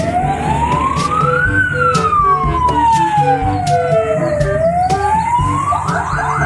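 Ambulance siren sounding a slow wail: one rise and fall over about four seconds, then a second rise. Near the end it switches to a fast yelp of about four to five sweeps a second.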